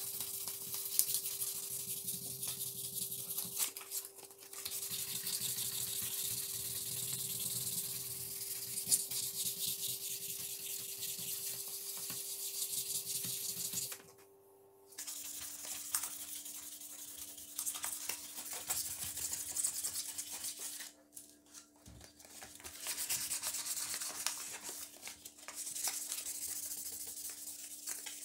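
Fine P1000 abrasive paper rubbed by hand back and forth over the cast-iron soleplate of an old flat iron, giving a steady scratchy hiss. It breaks off briefly about halfway through and again about three-quarters through.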